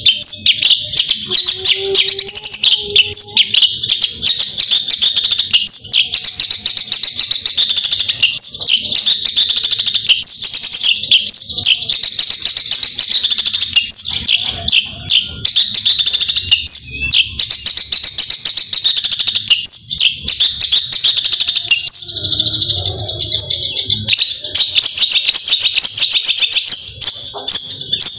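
Long-tailed shrike (cendet) singing a fast, unbroken stream of high chattering and whistled notes, its rapid-fire "tembakan" song, pausing briefly about three-quarters of the way through.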